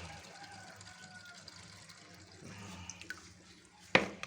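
Faint water trickling and dripping in an aquarium while fish are being caught out of it, with one sharp knock about four seconds in.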